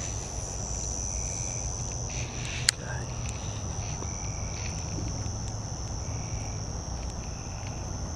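Crickets trilling in a steady, continuous high-pitched night chorus, with one sharp click about two and a half seconds in.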